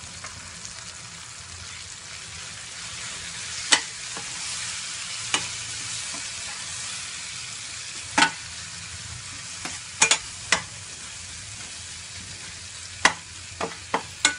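Chopped tomatoes sizzling in hot oil in a stainless steel pan. A steel spoon stirs them, knocking and scraping against the pan about ten times, most often in the second half.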